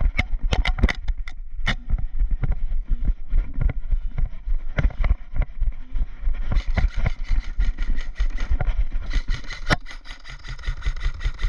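Footsteps and gear knocking as an airsoft player sets off at the start of a game: many irregular sharp knocks and clicks over a steady low rumble on the microphone.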